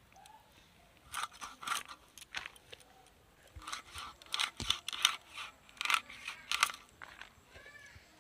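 A bonti, the curved fish-cutting blade fixed upright on a wooden board, slicing through a large aar catfish as the fish is pushed against it. A series of sharp cutting strokes: a few about a second in, then a denser run from about three and a half to seven seconds.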